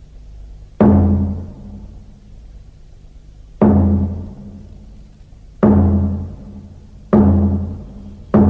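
Dramatic soundtrack music made of deep, pitched drum strikes. There are five in all, each ringing out and dying away over about a second, and they come closer and closer together toward the end.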